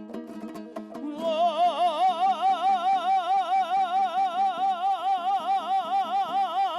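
A male voice singing a Kazakh folk song: after about a second of strummed strings, he holds one long note with a wide, even vibrato.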